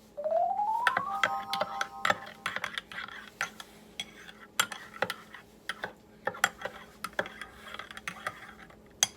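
Spoon and crockery clinking and tapping repeatedly, as when stirring instant coffee in a mug. Near the start, a tone rises in pitch for about a second and then holds steady for another second.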